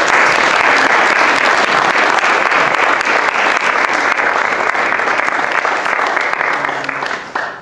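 An audience, mostly children, applauding steadily; the clapping dies away near the end.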